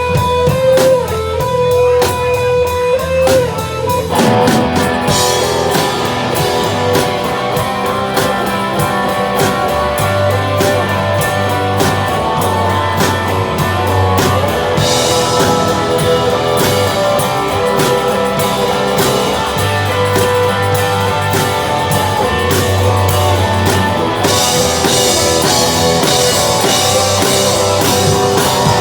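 A live band playing blues-rock on electric guitar and drum kit. It opens sparse, on a few held notes, and the full band with cymbals comes in about four seconds in.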